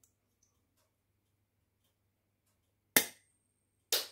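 Rocktol SK02 multitool pliers' wire cutter snipping through hard wire: two sharp snaps about a second apart, near the end.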